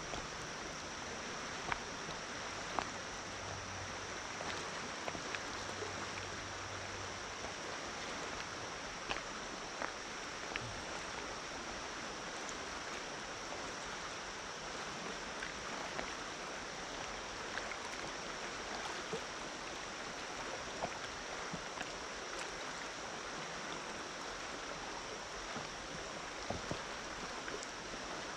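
High, fast-flowing creek water rushing steadily around an inflatable kayak, heard at water level, with scattered small sharp ticks and splashes.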